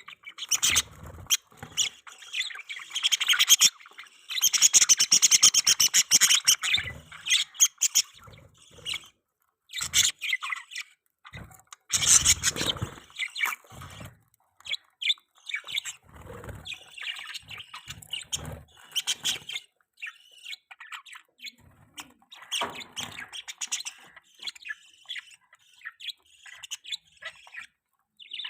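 Budgerigars chattering and chirping in rapid, irregular bursts with short pauses, loudest about four to seven seconds in and again around twelve seconds.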